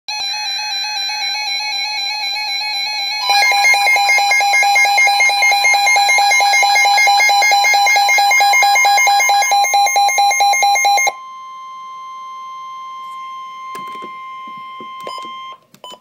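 Two NOAA weather alert radios, a RadioShack and a Midland, sounding their alarms for a flood warning: one radio's pulsing beeps, joined after about three seconds by the second radio's louder, faster beeping. At about eleven seconds the beeping stops and a quieter steady tone near 1 kHz continues, the broadcast's 1050 Hz warning alarm tone. A few clicks come just before it ends.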